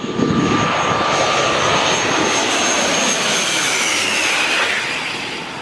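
Twin-engine turboprop airliner passing low overhead on landing approach: loud engine and propeller noise with a high whine that drops in pitch as it goes by, fading near the end.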